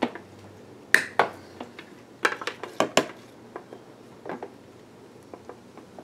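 Wire cutters snipping through a solar panel's insulated cable leads: a series of sharp clicks and snaps, the loudest about one second, two and a quarter seconds and three seconds in, with lighter clicks after.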